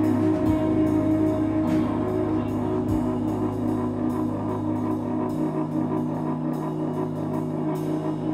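Live rock band playing an instrumental passage: sustained keyboard and electric guitar chords over drum and cymbal hits, with the bass note shifting up about five seconds in.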